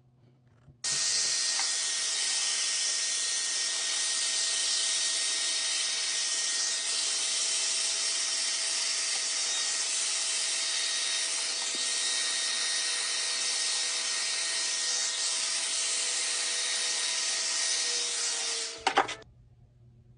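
Handheld power tool running steadily with a strong hiss, switched on about a second in and off near the end, with a couple of sharp knocks as it stops.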